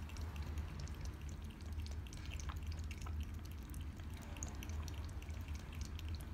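Shih Tzu puppy lapping water from a plastic gravity-fed water bowl: a quick, uneven run of small wet clicks and drips over a steady low hum.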